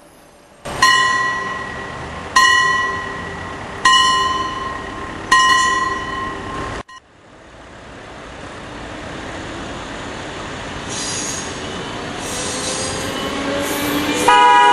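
A bell strikes four times, about a second and a half apart, each ring dying away. After a sudden cut, a passenger train approaches with a steadily rising rumble and gives a short horn blast near the end.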